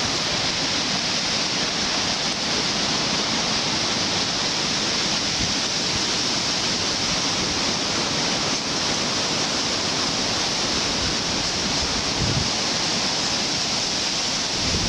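Steady rush of flowing creek water, an even hiss that holds unchanged throughout.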